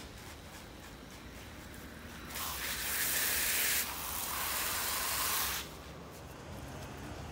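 Garden hose spray nozzle hissing as water sprays onto soil and potted plants. It starts about two seconds in, eases for a moment midway, and cuts off suddenly.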